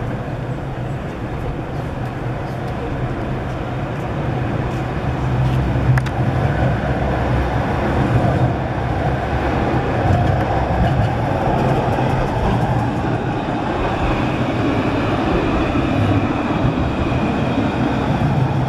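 Low-floor electric trams running along street track, one passing close by, with a low hum and a whine that grows in from about ten seconds in, over city street noise.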